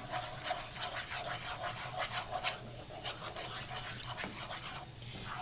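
Wooden spoon stirring a thick, sticky cheese cream sauce in a saute pan: irregular short scrapes and soft clicks of the spoon against the pan, over a steady hum.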